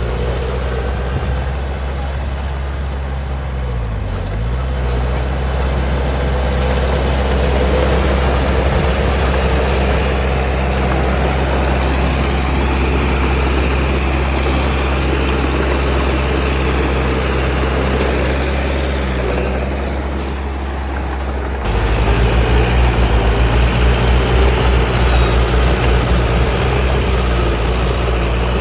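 Heavy diesel engine of earthmoving machinery running steadily, its pitch dipping briefly twice. About 22 s in the sound changes abruptly to a louder engine with a rapid low pulsing.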